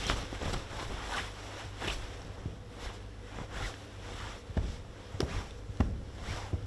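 Foley footsteps: leather-soled shoes stepping in place, a string of soft, uneven steps and scuffs, about one or two a second, with a few sharper heel strikes in the second half. A steady low hum sits underneath.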